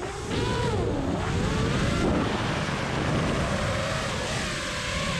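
FPV quadcopter's brushless motors and propellers whining over rushing wind noise. The pitch dips and rises with the throttle in the first couple of seconds, then holds steadier.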